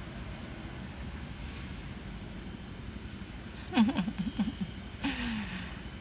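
Steady low rumble of a car idling, heard from inside the cabin. About four seconds in, a person's voice breaks in briefly with a quick wavering run of sounds, then a short falling sound just after.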